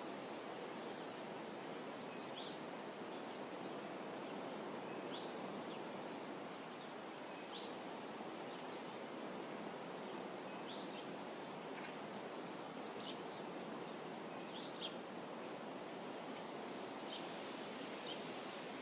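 Faint, steady outdoor ambient hiss with small birds chirping now and then. The short high calls come every few seconds, with a cluster near the end.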